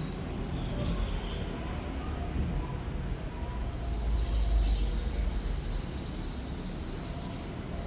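Thrush nightingale singing: a few short high notes, then about three seconds in a long, high rattling trill that holds for some four seconds, over a steady low rumble of traffic.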